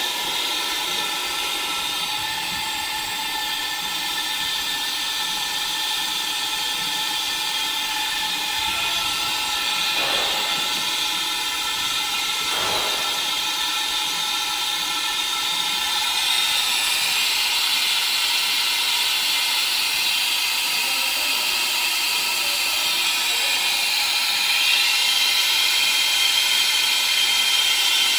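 Vacuum pump of a can seam leak tester running, pulling a vacuum on a water-filled chamber with a sealed tin can held under water to check its double seam for leaks. A steady hissing drone with a whine in it, growing a little louder about halfway through and again near the end.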